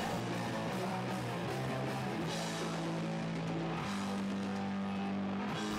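Rock band playing with electric guitar: long held chords that shift to a new pitch every second or two, at a steady level.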